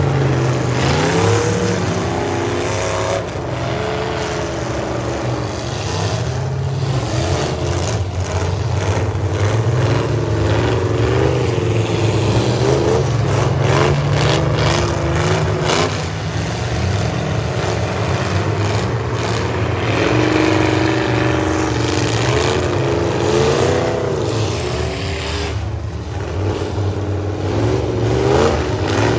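Several full-size pickup truck engines revving hard and falling back again and again as the trucks ram each other, with sharp crunching impacts of collisions through the middle of the stretch.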